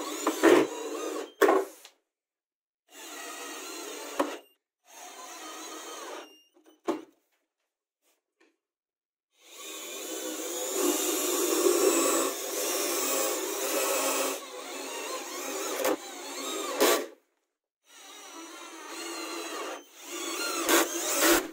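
Cordless drill-driver running in several separate bursts, the longest about seven seconds, as it drives screws into a chipboard frame and drills through plywood corner gussets. A few sharp clicks come between the runs.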